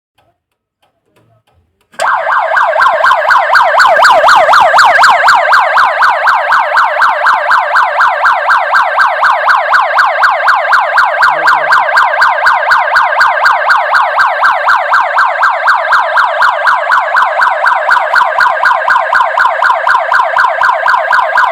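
Electronic police-style siren fitted to a tractor, switched on about two seconds in and sounding loud and steady: a fast rising-and-falling wail of about four sweeps a second.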